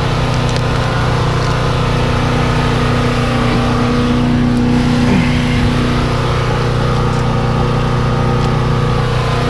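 An engine or motor running steadily at an even pitch, with a few light clicks in the first second.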